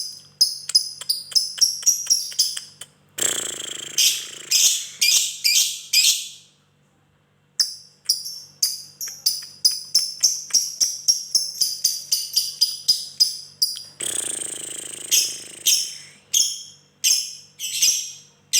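Lovebird singing a long 'ngekek' chatter: rapid runs of sharp, high chirps, about three or four a second, broken twice by denser rasping trills, with a short pause about seven seconds in. A faint steady hum lies under it.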